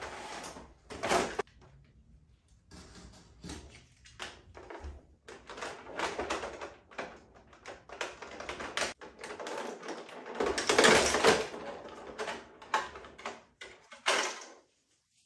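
Clear plastic packaging tray crackling and clicking as an action figure is worked free of it, in uneven bursts, loudest about a second in and again around eleven seconds.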